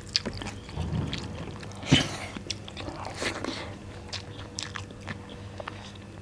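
Close-miked eating sounds: chewing and wet mouth smacks as rice and chicken liver curry are eaten by hand, with the squish of fingers mixing rice. One louder smack comes about two seconds in, over a faint steady hum.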